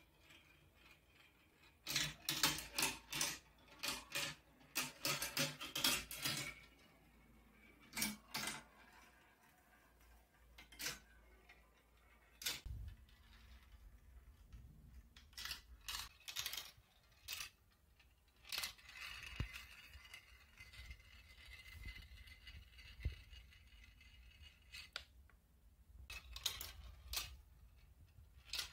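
Marbles clicking and clattering as they roll down a toy marble run. A dense burst of clacks comes a couple of seconds in, then scattered single clicks and short rattles.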